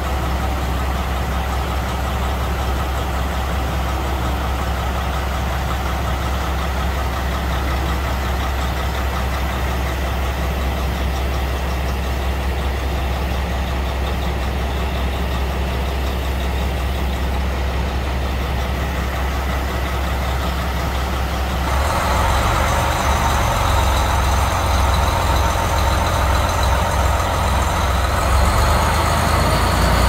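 KiHa 183-series diesel express railcars idling with a steady low engine drone. About two-thirds of the way through, the engines throttle up and grow louder as the train starts to pull away.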